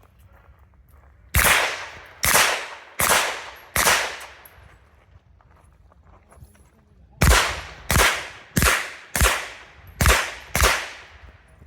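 Ten pistol shots fired through a timed competition stage, each a sharp crack with a trailing echo. Four come about a second apart, then after a pause of about three seconds six more follow in quicker succession.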